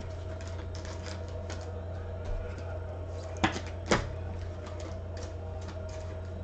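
Two sharp clicks about half a second apart, a bit over three seconds in, among fainter light taps, over a steady low electrical hum.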